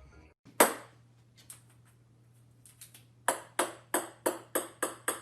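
A single sharp tap, then from about three seconds in a run of light, crisp taps on a hard surface coming ever faster and softer.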